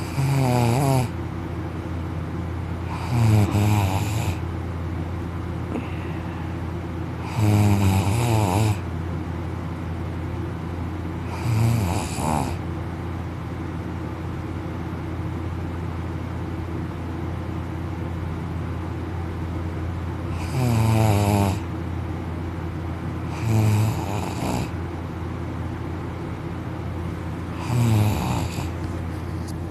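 A young man snoring loudly in deep sleep, lying on his back with his mouth open: seven rattling snores at uneven intervals, with a long pause of several seconds in the middle. A steady low hum runs underneath.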